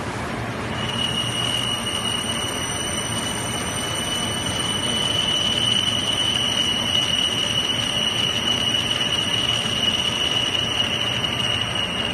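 Zayer milling machine's cutter machining a metal block, with a steady high-pitched whine that sets in about a second in over a constant hiss of coolant spray.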